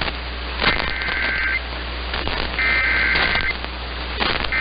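Emergency Alert System SAME header data tones: buzzy two-tone digital bursts, two of them about a second apart with a third starting just at the end, over steady radio static with crackles. The bursts mark the start of an emergency alert broadcast, here a flash flood warning.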